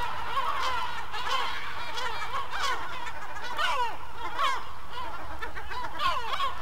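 A flock of gulls calling, many short cries overlapping in a continuous chorus.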